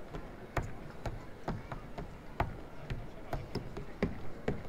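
Footsteps of a person walking, sharp, even steps about two a second.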